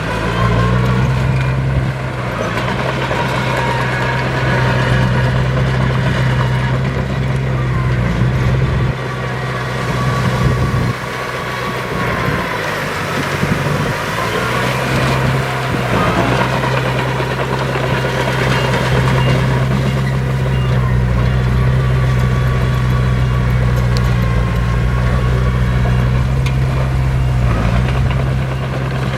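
Heavy diesel engine of earthmoving machinery running loudly and steadily under load, with a few brief dips and shifts in its note.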